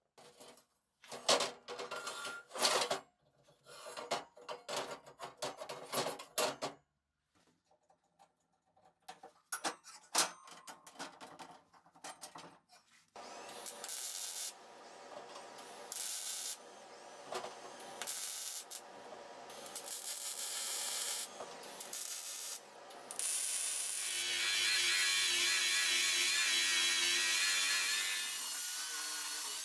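Metalworking sounds in sequence: irregular crackling bursts, then the steady crackle and hiss of arc welding on a steel frame in runs with short breaks, and near the end a louder whirring power tool abrading a steel plate.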